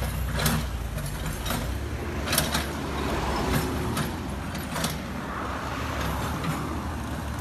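Mini excavator's engine running steadily as it works, with scattered sharp knocks through the first few seconds as it tears through brush and soil.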